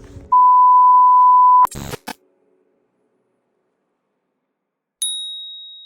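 Electronic sound effects: a loud, steady beep about a second and a half long, cut off by a short crackle of static clicks, then after a few seconds of silence a single high ding that fades away near the end.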